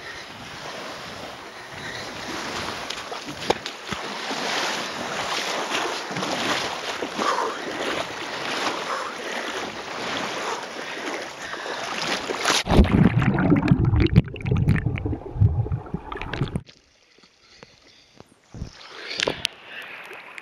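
Lake water splashing as a man wades in, with wind buffeting the microphone. About 13 seconds in he plunges down, bringing a few seconds of heavy, deep sloshing. The sound then goes muffled and quiet except for a few clicks.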